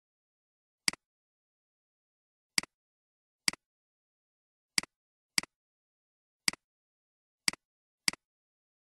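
Computer mouse clicks, eight in all at irregular intervals, each a sharp press followed at once by a fainter release tick, with dead silence between them.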